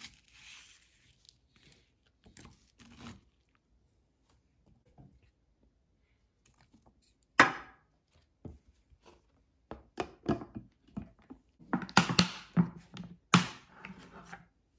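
A knife cuts bell pepper on a plastic cutting board with a few soft strokes. About halfway through comes one sharp knock. Near the end a quick run of clicks and clacks follows as a glass food container's snap-lock lid is fitted and latched.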